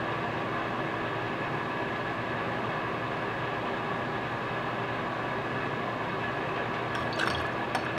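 Steady whirring hum of a running fan or air-conditioning unit, even throughout, with a few faint light clicks near the end.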